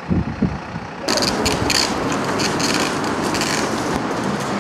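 A few low thumps, then about a second in a loud mechanical clatter of road-works machinery sets in and keeps going.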